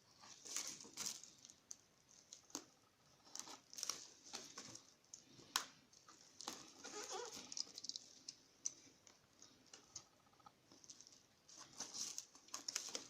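Hands working at a sealed parcel box to open it: irregular crinkling and rustling of packaging, broken by sharp clicks and scrapes.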